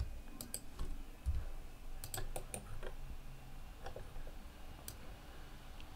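Irregular, fairly quiet clicks from a computer keyboard and mouse as someone works at the computer.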